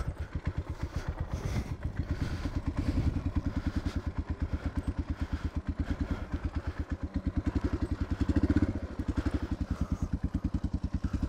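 Suzuki DR650's single-cylinder four-stroke engine running with evenly spaced exhaust pulses, revving up briefly around eight seconds in, as the bike is stuck and its rear tyre digs a hole in soft sand.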